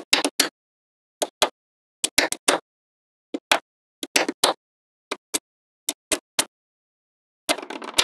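Small neodymium magnetic balls clicking as strips of them snap onto a magnet-ball structure: short groups of one to three sharp clicks, then a longer rattling clatter near the end.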